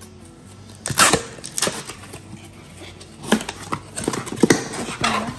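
Cardboard box being worked open by hand: scraping and rustling of the flaps and tear-tab, with several sharp knocks, the loudest about a second in and again near the middle and end.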